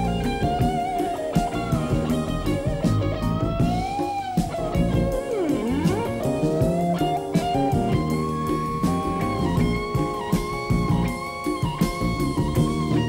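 Semi-hollow electric guitar playing a solo line with bent notes over bass and drums, swooping down in pitch and back up about five seconds in, then returning again and again to a high note with vibrato.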